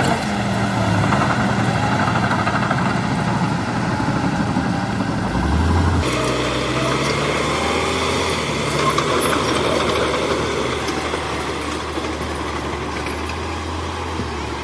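Heavy diesel engine of construction machinery running steadily, with an abrupt change in its sound about six seconds in.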